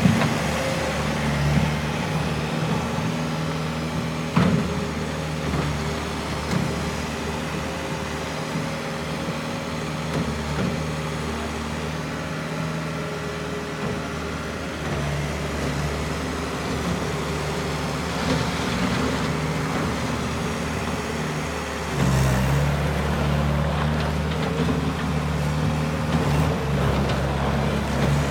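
Bobcat S205 skid steer loader's diesel engine running steadily, with a couple of short knocks early on; about two-thirds of the way through it abruptly gets louder and stays so.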